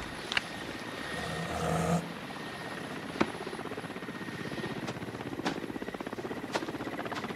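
Helicopter rotor chopping in a steady, fast beat while hovering overhead, with a few short sharp clicks, the loudest about three seconds in.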